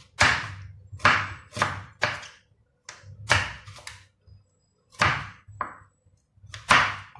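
Knife chopping through pumpkin and striking a wooden cutting board: about ten sharp knocks at uneven intervals.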